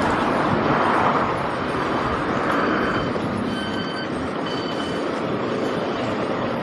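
A train running: a steady rumble, with a few short high-pitched tones near the middle.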